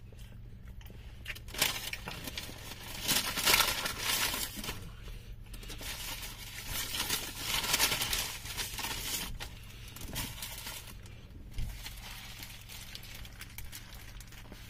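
Paper burger wrapper crinkling as it is handled, in bursts over several seconds, loudest a few seconds in and again near the middle, with chewing between.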